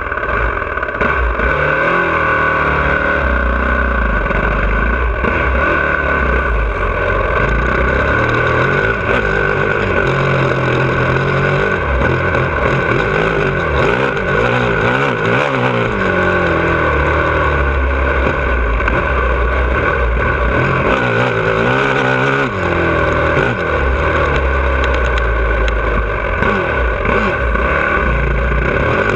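2017 Honda CRF450R's single-cylinder four-stroke engine heard from on board while riding, its pitch repeatedly rising under throttle and dropping at each shift or roll-off.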